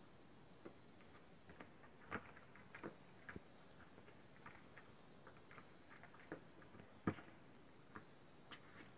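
Faint, scattered light clicks and taps on hard plastic, the loudest about seven seconds in: kittens pawing at a Catit Senses 2.0 Super Circuit plastic ball-track toy.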